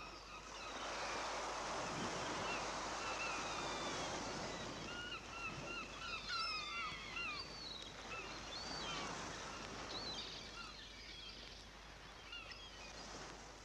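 Seaside ambience: gulls giving short, repeated calls over a steady wash of background noise.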